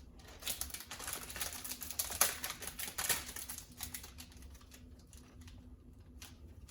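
A quick run of small clicks and taps from things being handled on a table, thinning out after about four seconds.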